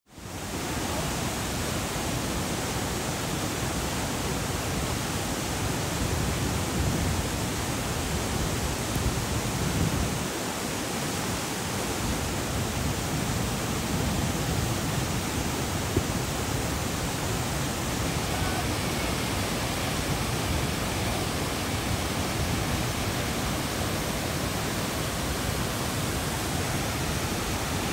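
Large waterfall swollen with flood water, rushing over rock ledges as a steady hiss of white water with no let-up; it fades in at the very start and dips briefly about ten seconds in.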